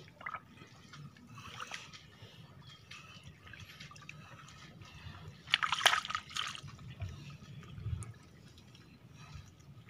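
Wet mud and water squelching and sloshing as a hand and arm dig deep into a flooded mud crab burrow, in uneven bursts, loudest about six seconds in.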